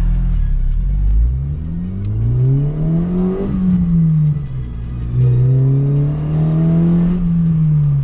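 Honda Fit's 1.5-litre four-cylinder engine heard from inside the cabin, revving up and easing off twice: the pitch climbs to a peak a little over three seconds in, falls away, then climbs and falls again near the end.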